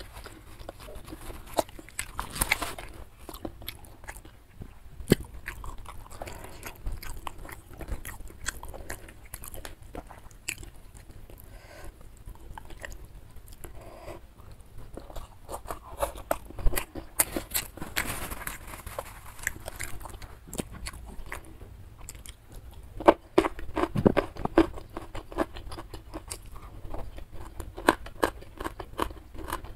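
Close-up chewing and biting of food, with many short crunchy clicks throughout and busier stretches of chewing around the middle and two-thirds of the way in.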